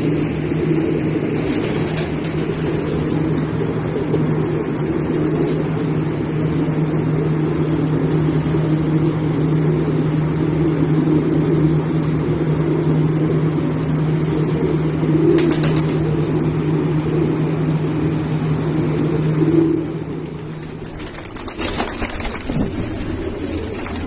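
Iranian domestic pigeons cooing in low, rolling murmurs over a steady low hum that stops about twenty seconds in. A few short rustling knocks follow near the end.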